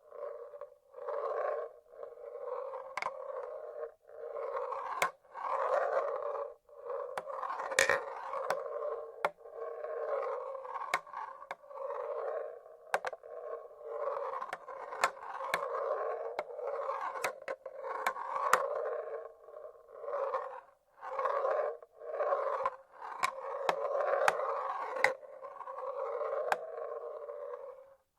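Marbles rolling along the tracks of a wooden marble-run machine: a rolling rumble that swells and fades every second or two, with sharp clicks as marbles drop and knock against each other and the wood.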